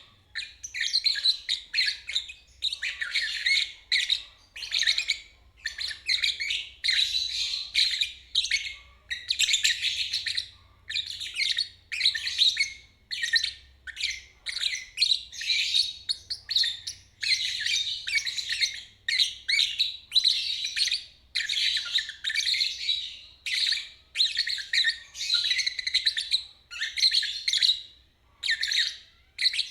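Lovebird singing its long "ngeriwik" chatter: rapid, shrill trilled phrases of about a second each, following one another with short breaks.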